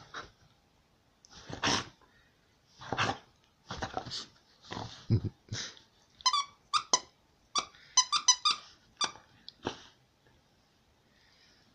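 A dog chewing a plush squeaky toy. For the first six seconds come noisy puffs about a second apart, then a rapid run of short, high squeaks from the toy's squeaker that stops near ten seconds in.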